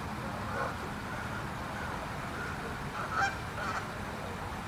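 Geese honking a few times, the loudest call about three seconds in, over steady low background noise.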